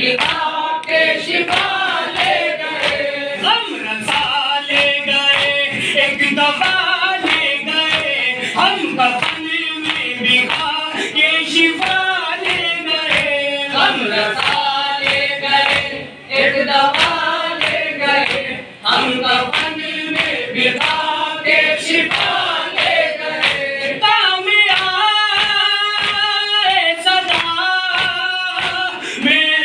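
A group of men sing a noha, a Shia mourning elegy, in chorus to a steady beat of hands striking their chests in matam, about two strikes a second. The singing breaks off briefly twice around the middle.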